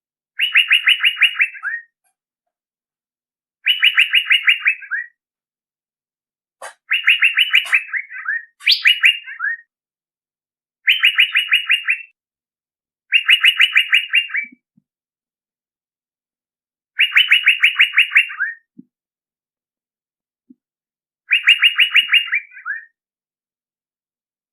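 Male Asian fairy-bluebird (cucak biru) calling, played as a lure call: short phrases of a rapid run of about ten liquid notes, each ending in a lower note, repeated every two to four seconds.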